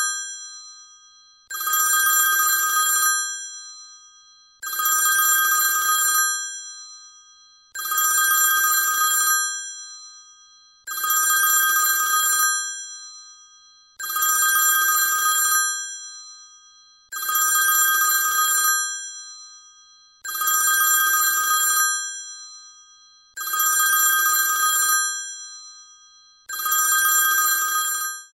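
iPhone ringtone sounding like a ringing telephone bell, repeating as an incoming call. It rings in bursts about every three seconds, each about a second and a half long with a fading tail, and stops abruptly at the end.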